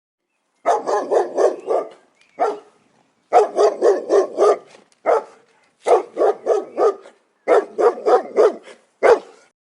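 A dog barking in quick runs of about five barks, four or five a second, with short pauses between runs and a few single barks in between.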